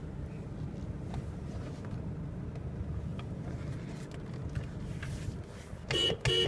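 A Nissan Navara D22's 2.5-litre turbo-diesel engine idling steadily, heard from inside the cab. Near the end the truck's horn gives two short toots, the loudest sound.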